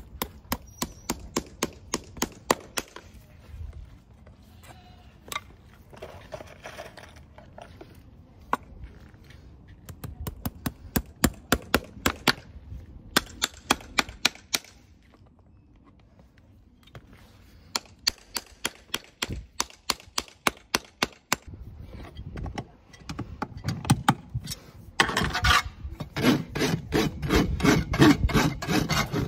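Farrier's driving hammer tapping horseshoe nails into a horse's hoof wall: runs of quick sharp taps, about four a second, with pauses between nails. Near the end a hoof rasp files the hoof with steady scraping strokes.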